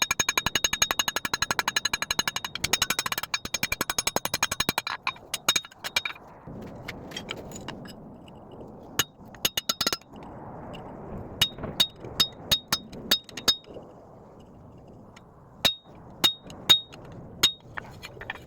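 Hammer striking hot steel bar stock on an anvil, each blow ringing. A fast, even run of strikes for the first five seconds or so, then separate blows in small groups with pauses between, over a soft rushing noise.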